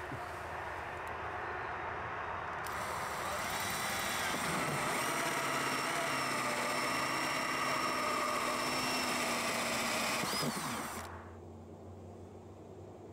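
Cordless drill boring a hole through the wall of a black plastic tub. It runs steadily with several held tones, gets a little louder about four seconds in, then winds down and stops about eleven seconds in.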